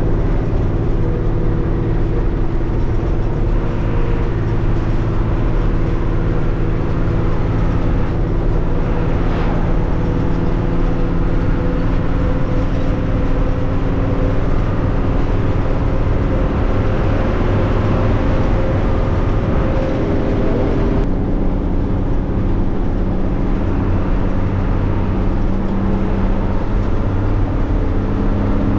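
Intercity bus running on the road, heard from inside the cabin: a steady engine note over road and tyre noise. The engine's pitch pattern shifts once, about two-thirds of the way through.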